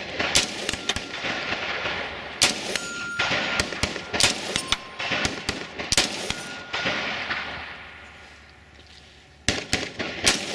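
Rifle shots fired in quick succession, dozens of them, some overlapping as if from more than one rifle, with the ring of steel targets being struck. A lull near the end, then more shots.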